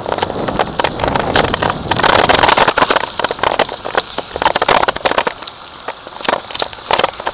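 Bicycle rolling over rough asphalt: tyre noise with wind buffeting the microphone and many irregular clicks and rattles, loudest about two to three seconds in.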